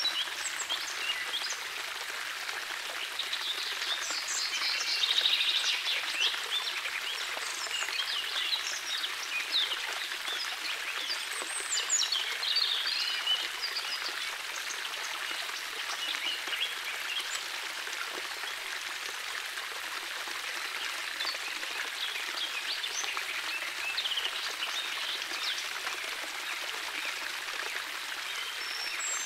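Shallow water trickling and splashing over pebbles and low stone steps in a landscaped stream, a steady hiss, with birds chirping now and then.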